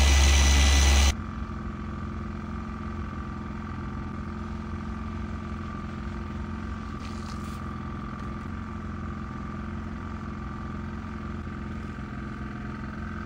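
A Rupes machine polisher running loud and steady on the paint, cutting off abruptly about a second in. After it, a quieter steady mechanical hum carries on.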